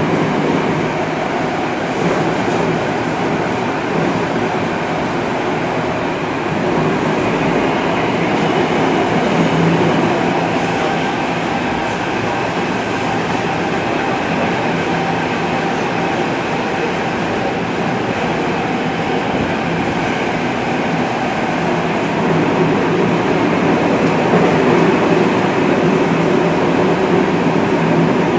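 Tokyo Metro 05 series subway train (set 14, car 05-214) running through the tunnel, heard from inside the car: a steady rumble of wheels on rail with motor and running noise. It grows a little louder about two-thirds of the way through.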